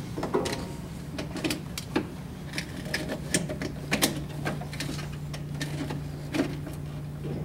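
Irregular clicks and clatter of a VAT-40 tester's battery cable clamp being handled and clipped onto the negative battery terminal, over a steady low hum.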